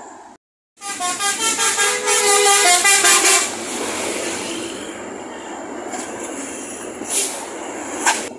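A bus's basuri 'telolet' multi-tone air horn plays a quick melodic run of tooting notes for about three seconds after a moment's silence. It is followed by the steady noise of the passing vehicle.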